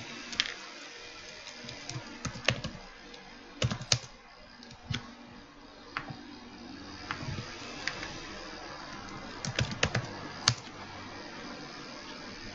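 Typing on a computer keyboard: irregular keystrokes, some in quick clusters, with pauses between, over a steady faint hiss.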